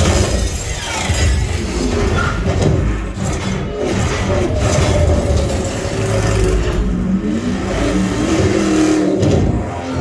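Film soundtrack of a car race played loud through a Klipsch Reference Premiere 5.2.4 home-theater speaker system and picked up by a phone mic in the room: car engines revving with heavy bass and crash impacts, music running underneath.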